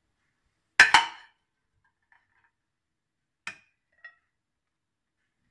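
A metal slotted spoon clinking against a plate as meat is served onto it: two sharp clinks close together about a second in, then a lighter clink about halfway through and a faint tick just after.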